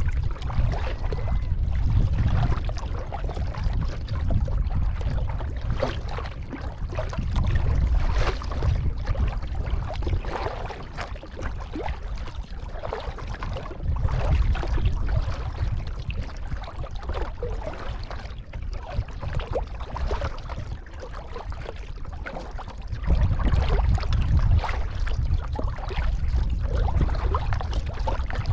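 Kayak paddle strokes: repeated splashes and dripping water as the blades dip and lift, with a low gusting rumble of wind on the microphone.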